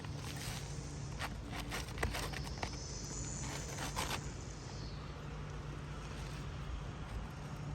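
Scraping and scattered light knocks as a new roof shingle is handled and slid into place, over a steady low hum.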